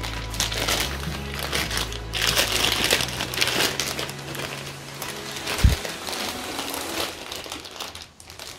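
Clear plastic wrap crinkling and rustling as speakers are pulled out of their bags, over background music with a steady bass line. A single dull thump sounds a little past halfway.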